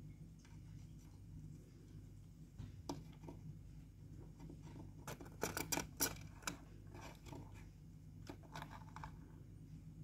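Faint scratching and clicking of budgerigar chicks shifting about on wood shavings in a wooden nest box, with a quick cluster of sharper clicks about halfway through, over a low steady hum.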